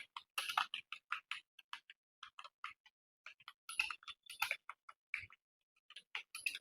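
Computer keyboard being typed on: quick, uneven runs of key clicks, several a second, broken by brief pauses about three seconds in and again near the end.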